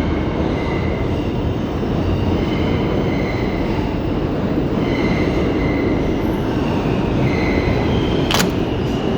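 Subway train running through the station: a steady loud rumble with high-pitched wheel squeals that come and go. A single sharp click sounds near the end.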